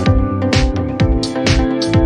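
Electronic background music with a steady dance beat, about two kick-drum beats a second, over held synth tones.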